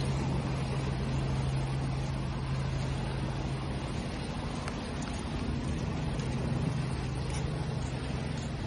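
A steady wash of sea waves with a low engine hum running under it; the hum's tone shifts slightly about four seconds in.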